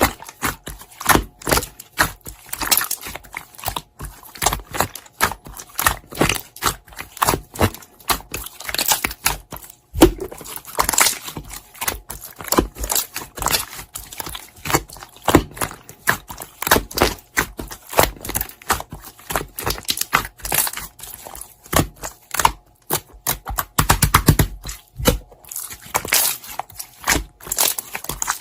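Slime being squeezed and worked by hand, giving dense, irregular sticky clicks and crackling pops.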